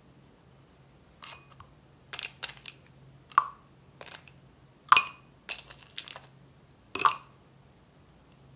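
Ice cubes dropped one by one into a stemmed glass onto berry sauce: a dozen or so sharp clinks and knocks over about six seconds, the loudest about five seconds in.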